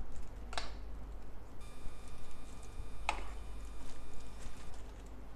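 Spoon scraping thick chocolate mousse off into a plastic piping bag, two short scrapes about half a second and three seconds in, over a low steady hum. A faint high steady tone comes in about a second and a half in and stops near the end.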